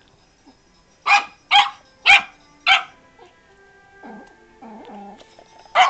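Yorkshire terrier puppy barking four quick, high-pitched yips about half a second apart.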